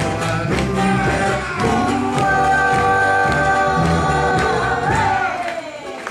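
Samoan song sung by a group over musical accompaniment, with long held notes in the middle that fade away near the end.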